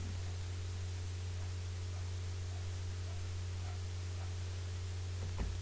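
Steady low electrical hum and constant hiss from a cheap microphone, with no speech over it. There is one brief knock near the end.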